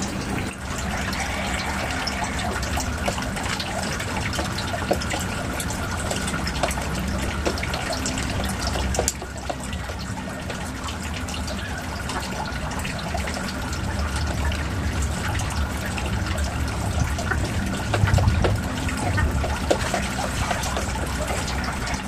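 Steady splashing of water pouring into a fish pond, with scattered small clicks and knocks from handling a pump.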